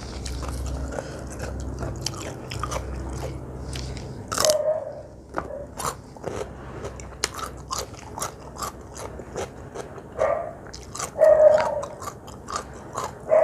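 Close-miked biting and chewing of crunchy food, with many sharp crisp crunches. A few short pitched sounds stand out, the loudest about eleven seconds in.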